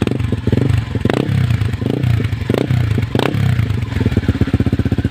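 RS150 motorcycle's single-cylinder engine breathing through an Apido power pipe aftermarket exhaust, blipped on the throttle several times in quick succession, then settling back to an even idle near the end.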